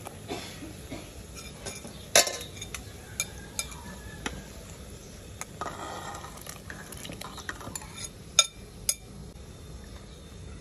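A metal spoon and ladle clinking and scraping against an aluminium cooking pot and a plate, with scattered sharp clinks, two of them louder, about 2 s and 8.5 s in. Around the middle there is a longer scraping rush as pork pieces are pushed off the plate into the pot of boiling water.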